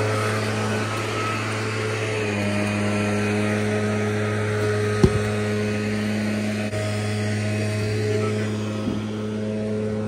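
An engine running steadily with a low, even hum. About halfway through, a heavy thud as a section of tree trunk is dropped onto the asphalt.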